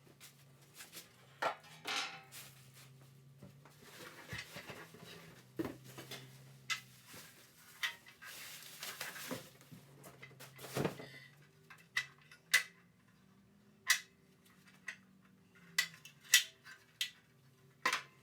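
Stamped steel replacement body panels being handled and pulled from their packaging: a string of sharp metallic clanks and knocks, some ringing briefly, with rustling and scraping between them. The knocks are louder and more spaced out in the second half.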